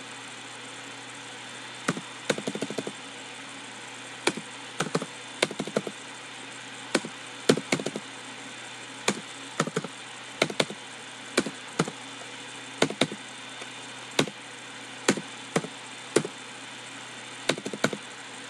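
Computer keyboard being typed on: numbers and commas keyed in short runs of quick clicks separated by pauses of about a second, over a steady low hiss.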